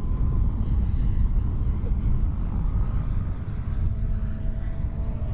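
Faint whine of a SebArt Miss Ultimate 50E electric aerobatic RC plane's motor and propeller, drifting in pitch as it manoeuvres, under a loud, uneven low rumble of wind buffeting the microphone.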